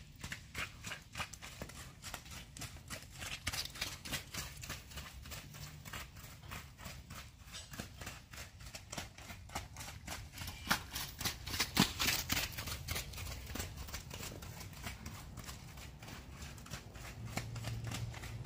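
Horse's hooves striking wet sand footing in a steady, even rhythm as it trots circles on a longe line.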